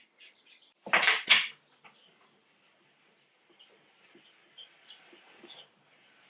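Two short, loud clatters about a second in, with a few quieter knocks later. Behind them a bird gives short, high, falling chirps several times.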